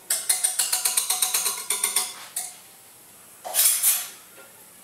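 Metal balloon whisk beating béchamel sauce in a stainless steel saucepan, its wires ticking rapidly against the pan, stopping about two seconds in. A short clatter follows about three and a half seconds in.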